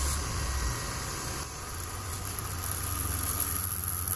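CNC mill spindle running as a small end mill cuts a groove in a motorcycle cylinder. A high whine grows louder from about two seconds in. It sounds terrible, which is put down most likely to a badly ground radius on the end mill, or else to the cut crossing between cast iron and aluminium.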